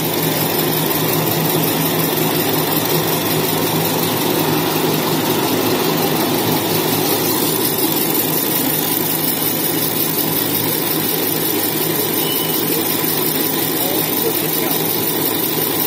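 Semi-automatic maxi-roll tissue cutting and rewinding machine running at a steady speed: a continuous mechanical hum with a low steady drone.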